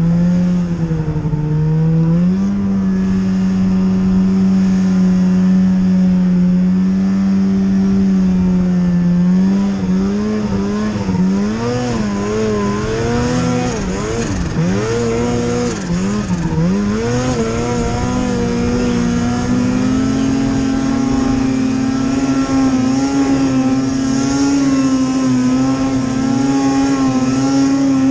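2016 Arctic Cat M8000 snowmobile's 800 cc two-stroke twin, fitted with a Boondocker turbo kit, running hard under throttle. Its pitch steps up about two seconds in, rises and falls repeatedly through the middle, then holds higher near the end.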